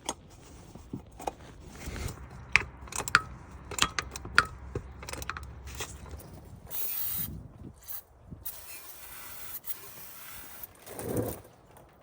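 A ratchet and metal tools clicking and scraping in short irregular strokes. Then an aerosol spray hisses in two bursts, a short one and a longer one of about two seconds, and a dull thump follows near the end.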